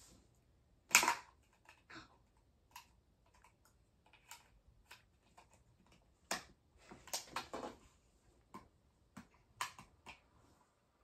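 Small object being handled and turned over in the hands, giving scattered light clicks, taps and rubbing, loudest about a second in and in a cluster in the second half.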